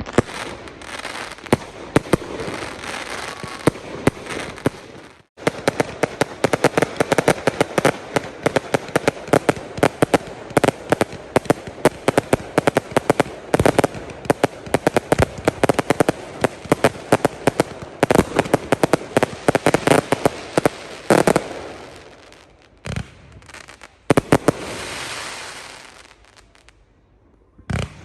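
Fireworks display: many sharp bangs and crackles in rapid succession, densest through the middle and thinning out to a few scattered bangs near the end.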